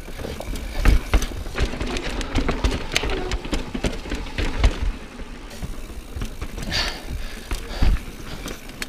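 Transition Sentinel full-suspension mountain bike rolling over bumpy sandstone slickrock: a steady low tyre rumble with frequent sharp clattering knocks as the bike hits rock ledges.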